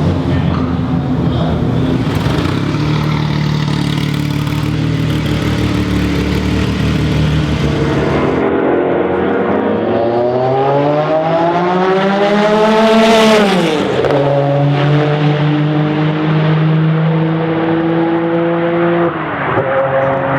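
Porsche 962 Group C race car's turbocharged flat-six engine running at speed on track. About halfway through, the note climbs steadily as the car accelerates and then falls sharply as it passes. It holds a steady note after that and drops again near the end.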